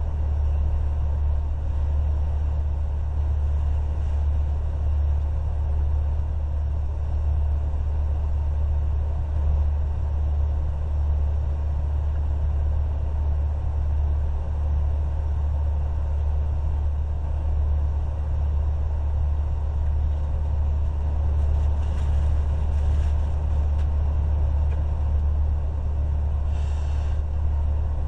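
Steady low rumble of an idling truck engine, with a couple of brief faint crackles late on.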